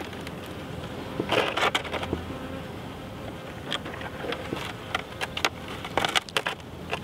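Honeybees buzzing steadily around an open nuc hive, while wooden frames knock and click as they are lowered and pushed back into place, with clusters of clicks about a second in and again near the end.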